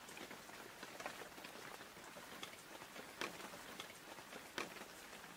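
Light rain falling, heard faintly: a steady hiss with single drops ticking irregularly, about once or twice a second, two of them louder in the second half.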